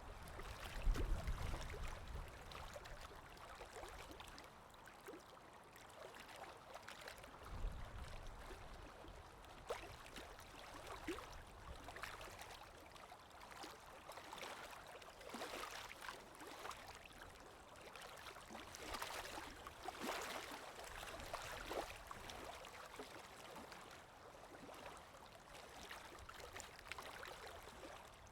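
Lake waves washing and splashing on the shore: a steady wash of water with many small crackling splashes. A low rumble comes about a second in and again near eight seconds in.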